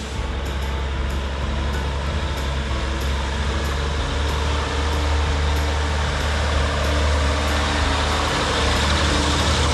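Heavy equipment's engine running steadily under load, with a strong low hum.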